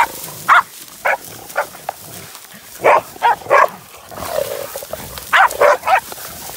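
Short, sharp animal cries, about nine of them, some single and some in quick runs of three, from pig dogs and the feral boar they are holding down.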